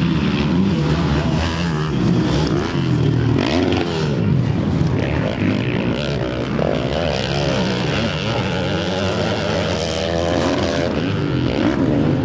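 Several 450-class motocross bikes racing on a dirt track, their engines revving up and down over and over as the riders open and close the throttle.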